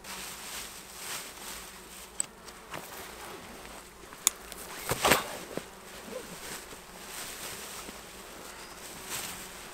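Flies buzzing steadily, with rustling of plastic and fabric game bags being handled, a sharp click about four seconds in and a louder rustle about a second later.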